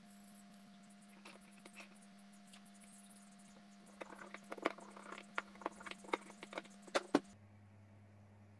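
Light metallic clicks and taps of a hand screwdriver working the small screws of a reducer ring in an aluminium router insert plate, a few at first and then a quick run of them over about three seconds, over a faint steady hum.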